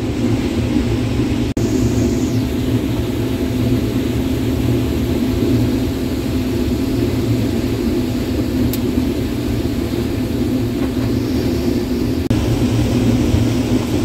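Case IH 2388 combine running steadily under load while harvesting corn, heard from inside the cab as a constant drone with a steady hum. The sound cuts out for an instant twice, about a second and a half in and near the end.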